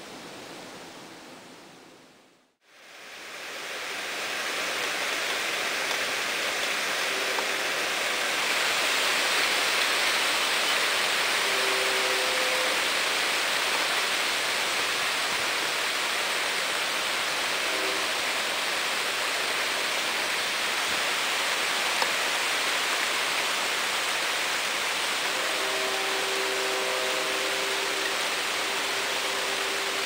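Steady hiss of background noise that dips to silence about two seconds in and fades back up. Over it a distant railroad air horn sounds faintly as a chord of several notes: a few short blasts, then a longer sounding near the end.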